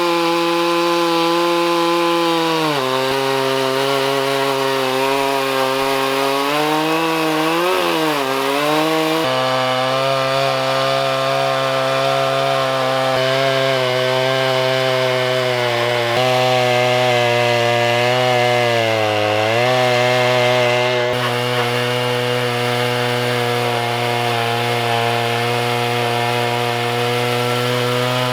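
Stihl MS 661 two-stroke chainsaw with a 42-inch bar and ripping chain, mounted in an Alaskan chainsaw mill, running at full throttle while ripping a slab lengthwise through a log. Its pitch drops a few seconds in as the chain loads up in the cut, wavers for a few seconds, and dips again briefly later on.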